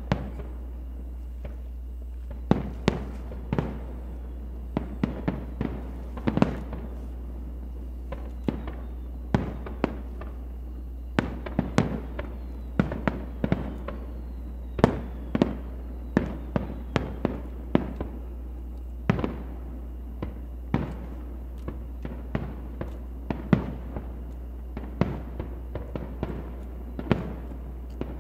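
Aerial firework shells bursting in a rapid, irregular run of sharp booms, about two a second, often two or three close together, over a steady low hum.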